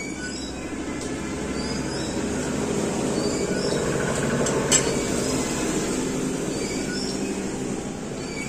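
A passing vehicle: a steady rumbling that swells toward the middle and eases off, with a single sharp click about halfway through and faint high chirps over it.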